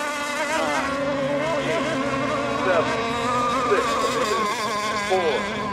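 Several radio-controlled racing boats' motors whining together at high pitch, each pitch rising and falling on its own.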